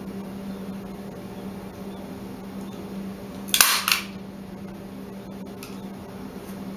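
A staple gun firing once about halfway through, a sharp clack in two quick parts as it drives a staple through upholstery fabric into a wooden chair frame.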